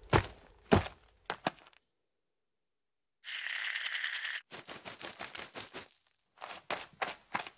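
Sound effects of an animated cartoon kiwi: a few soft thuds, a pause, a scratchy rustle lasting about a second, then quick light taps like small footsteps, about three a second near the end.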